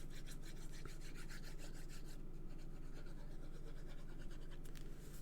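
Quick, repeated light rubbing and scraping strokes on card stock as adhesive is applied to a paper piece for gluing.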